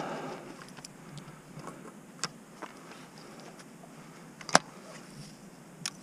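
Faint steady outdoor noise broken by a few isolated sharp clicks, the loudest about four and a half seconds in.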